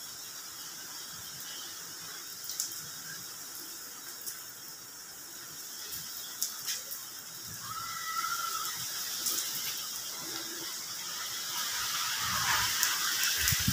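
Rain falling on a paved courtyard: a steady hiss of rain with scattered drop clicks and splashes, growing louder near the end. About eight seconds in, a short high-pitched tone sounds briefly over it.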